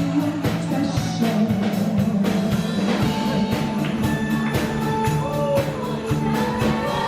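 Live rock band playing: a drum kit keeps a steady beat under held notes from keyboard and guitar, with bass.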